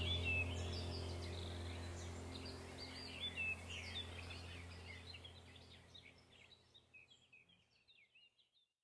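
Songbirds chirping rapidly over a low, sustained ambient-music drone, both fading out to silence about six seconds in.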